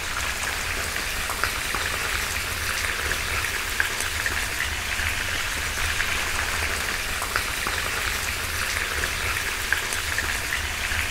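Lamb pieces on the bone starting to fry in oil in a cast-iron kazan: a steady sizzling hiss with scattered small pops as the oil heats up under the meat.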